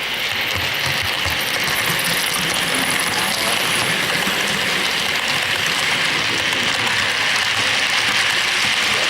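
Model train running on the layout's track: a steady, fine mechanical rattle of small wheels and motors on model rail, growing a little louder.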